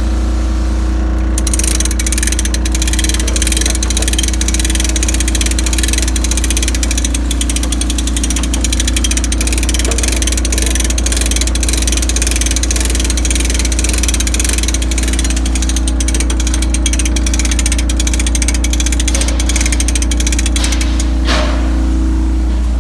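A light tower's generator engine running steadily at constant speed, a deep even hum. A crackling hiss sits over it from about a second and a half in until shortly before the end.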